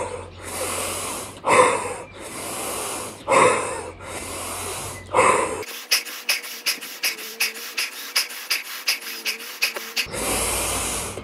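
A man doing Wim Hof breathing: deep, forceful breaths in and out through the mouth, one cycle about every 1.7 seconds. Just past the middle the breathing turns into a quick run of short puffs, about five a second and thinner-sounding, before one more deep breath near the end.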